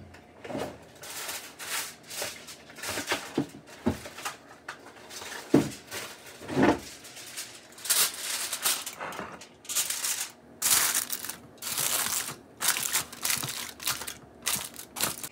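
Aluminium foil crinkling and rustling in repeated short bursts as a sheet is handled, unfolded and pressed down over a glass baking dish.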